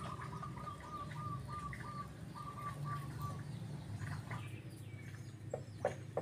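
A bird calling: a quick series of short, evenly repeated chirps, about five a second, in two runs over the first three and a half seconds, over a steady low hum. A few sharp clicks come near the end.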